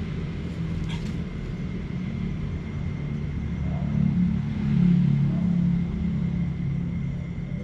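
A low, steady engine-like rumble that grows louder about four seconds in and eases off toward the end, with a faint steady high tone above it.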